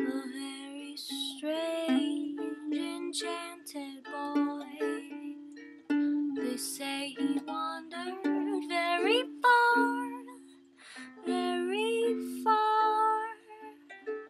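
Ukulele playing a slow tune, with a voice carrying a sliding, gliding melody over it.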